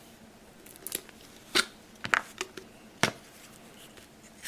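A handful of short, irregularly spaced clicks and taps from small objects being handled by hand.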